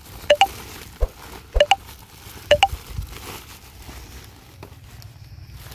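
A woven plastic sack being handled and untied, rustling, with a few dull knocks and three sharp double clicks about a second apart.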